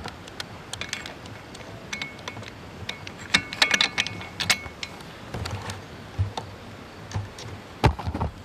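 Irregular light clicks, clinks and knocks of metal parts being handled, with a brief ringing clink about four seconds in and one sharper knock near the end. The hit-and-miss engine is not running.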